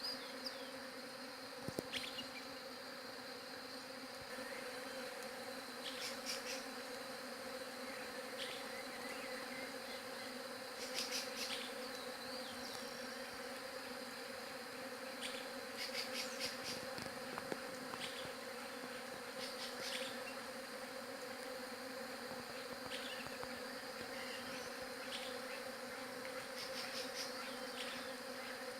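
Many bees buzzing, a steady low hum that holds even throughout.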